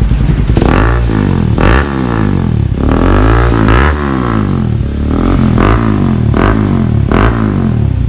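Bajaj Rouser 200NS single-cylinder engine revved in repeated blips through an aftermarket Villain slip-on muffler. The exhaust note climbs and falls back about once a second.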